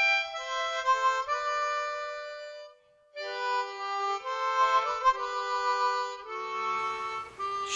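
Music from a Snoring Santa toy's recorded routine: a simple melody of held notes in a reedy tone, with a brief pause about three seconds in.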